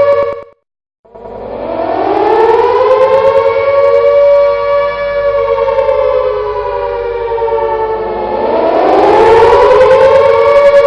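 Air raid siren sounding a steady two-note wail. It cuts out about half a second in, starts again a moment later and winds up in pitch to the held wail. Near the end it sags lower and winds back up.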